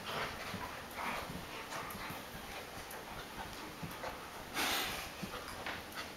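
An adult American Akita and a puppy play-wrestling: breathy huffs and snuffles with scuffling, the loudest a short huff about four and a half seconds in.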